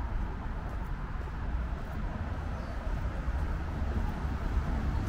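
Steady city street ambience: a low, even rumble of road traffic.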